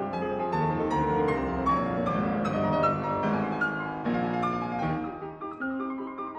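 Background piano music: a slow instrumental piece of melody and chords.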